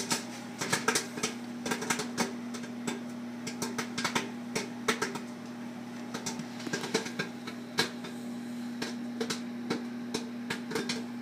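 Microwave popcorn popping in its bag inside a running microwave oven: irregular sharp pops, sometimes several close together, over the oven's steady electrical hum.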